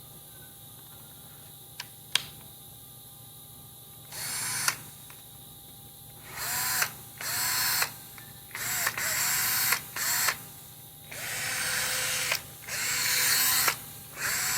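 Makita FD02 cordless drill test-run with its newly fitted replacement motor: about eight short trigger pulls, each whirring up in pitch and stopping sharply. Two sharp clicks come about two seconds in.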